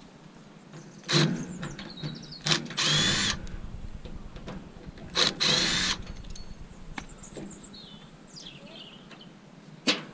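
Cordless drill run in two short bursts of about half a second each, with a high whine, amid sharp knocks of metal on metal while scrap is being dismantled.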